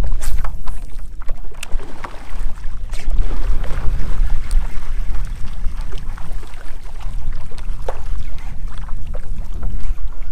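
Wind buffeting the microphone, a steady low rumble, over water sloshing around a stand-up paddleboard as it is paddled across choppy water, with scattered light knocks and clicks.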